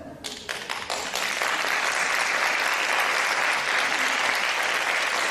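Theatre audience applauding: a few separate claps at the start swell into full, steady applause within about a second.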